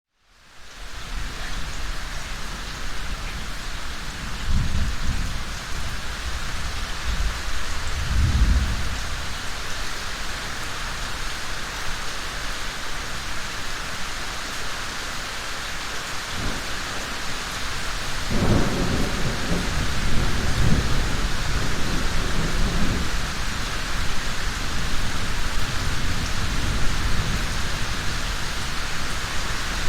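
Steady rain falling, with thunder rumbling low behind it: two short rumbles in the first ten seconds and a longer rolling peal from about eighteen seconds in. The rain fades in at the very start.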